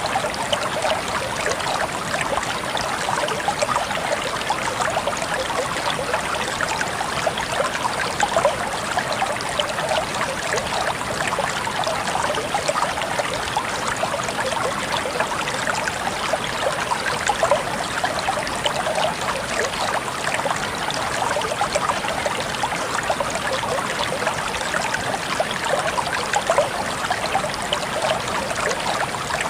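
Steady trickling and babbling of a small stream of water flowing over stones, with a continuous patter of fine splashes.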